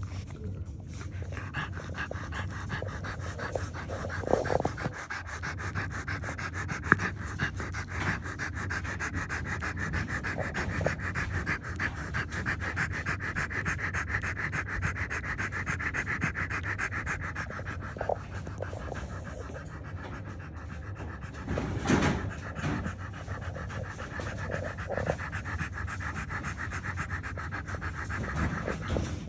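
Newborn French Bulldog puppy suckling at its mother's teat: a fast, even run of wet sucking clicks, with a few louder rustles as the puppies shift against the fleece, the biggest about 22 seconds in.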